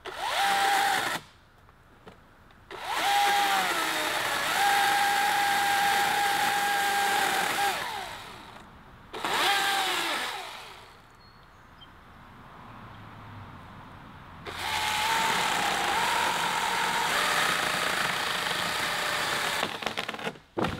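Husqvarna electric chainsaw run in four bursts, two short and two long, while cutting a notch into a tree branch. Its motor whine rises as the trigger is squeezed and winds down on release each time.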